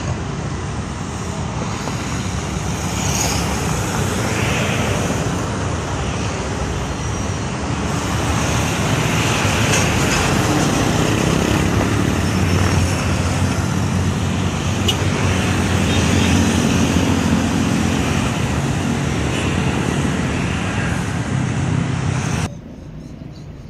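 Busy road traffic: cars, trucks and motorcycles running and passing, a steady mix of engine hum and tyre noise that cuts off suddenly near the end.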